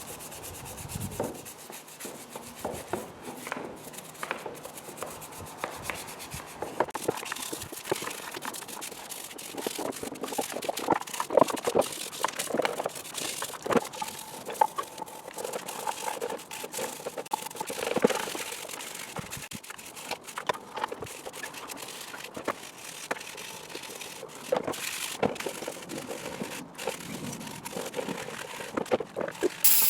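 Hand work on an engine: irregular clicks, taps and scrapes of tools and metal parts being handled.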